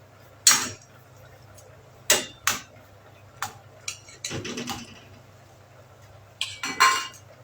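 A metal kitchen utensil clinking and scraping against a cooking pan in about seven separate strikes, with a longer scrape a little past the middle and a ringing clink near the end. A low steady hum sits underneath.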